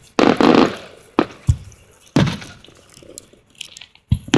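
Fireworks shells bursting overhead: a string of sharp bangs, with a longer crackling burst just after the start and two close bangs near the end.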